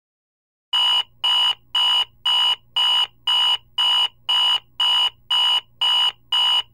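Digital alarm clock beeping: about a second in, a run of twelve short, high-pitched beeps starts, about two a second, with a faint low hum under them.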